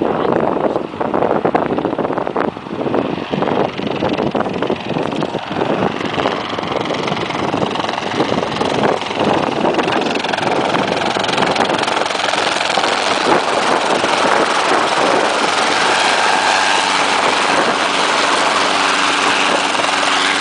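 Helicopter engine and rotor running: a loud, steady din with several held tones that grows fuller toward the middle and then holds. Gusts of wind hit the microphone through the first half.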